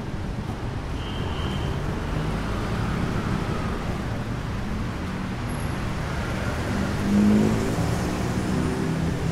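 Busy city street traffic: cars and other motor vehicles running past in a steady low rumble, swelling louder about seven seconds in.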